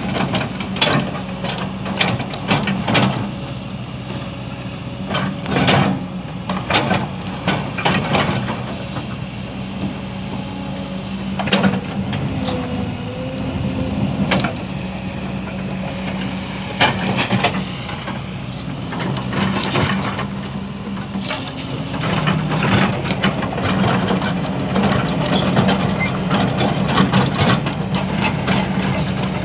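Hydraulic excavator's diesel engine running steadily, with frequent irregular sharp knocks and clanks as it works.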